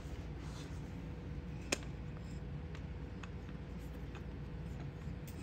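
Kittens padding about on a tile floor: a few faint ticks and one sharp click about two seconds in, over a low steady room hum.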